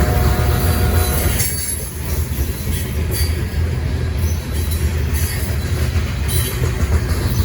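Train rolling past with a steady heavy low rumble of wheels on rail. A high wheel squeal rings for about the first second and a half, then stops, and a few short clanks follow later.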